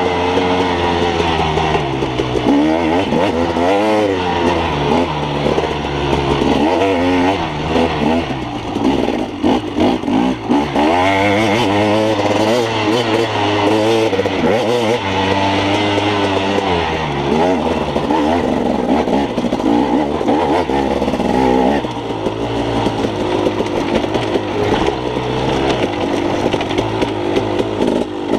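KTM off-road motorcycle engine ridden along a dirt trail, its pitch rising and falling again and again with throttle and gear changes. It runs steadier and a little quieter near the end.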